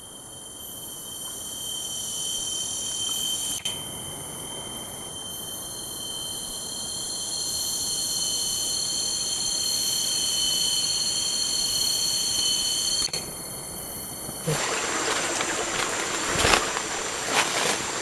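Cicadas in the rainforest canopy giving a steady, high-pitched, alarm-like whine of several layered tones, some cutting out and coming back. About three-quarters of the way through the whine stops suddenly, and the rest is the rustle and crunch of footsteps through forest undergrowth.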